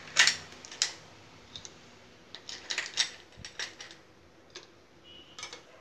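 Ice cubes clacking against a plastic spoon and a plastic bowl as they are scooped up and dropped into a glass of milkshake: a quick, uneven run of sharp clicks and knocks.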